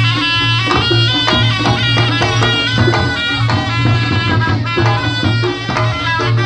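Reog Ponorogo gamelan accompaniment: a reedy, bending shawm melody over rhythmic drum strokes and a repeating low gong pulse.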